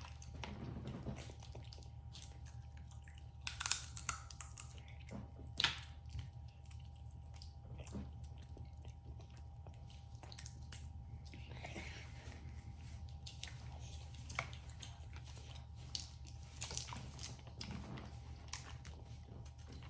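Eating seafood at close range: chewing, with scattered sharp clicks and cracks of crab shell, the clearest a few seconds in, near the middle and near the end, over a steady low hum.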